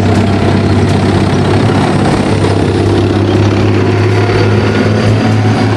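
Diesel engines of Challenger 2 main battle tanks running as a convoy drives past, a steady deep engine note.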